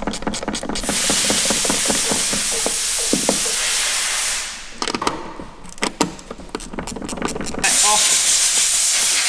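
Two spells of loud, steady hissing, with scattered clicks and knocks between them from metal and hose fittings being handled.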